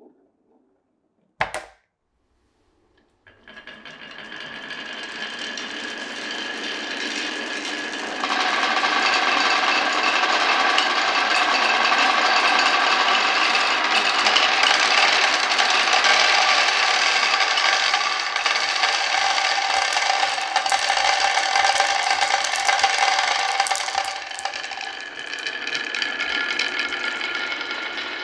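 Glass marbles rolling along a wooden marble run: a single sharp knock about a second and a half in, then a continuous rolling rumble with a ringing tone in it that starts about three seconds in, grows louder around eight seconds, and eases a little near the end.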